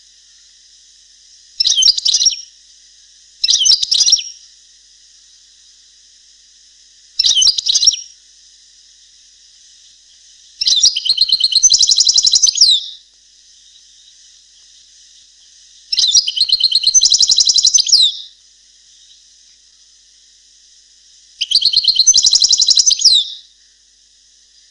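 European goldfinch song of the style breeders call the Palestinian song, used to tutor young goldfinches. It comes in separate phrases with pauses between them: three short ones, then three longer phrases of about two seconds each, over a steady high hiss.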